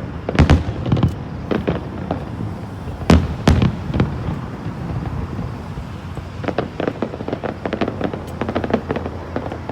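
Fireworks display heard from the crowd: loud aerial shell bursts, a few big bangs early on, then a dense run of quick crackling pops in the second half, over a low rumble of echo.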